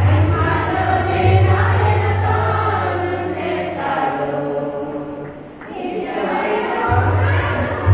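Music with a choir of singing voices over a steady low bass; the bass drops out for about a second and a half near the middle and returns.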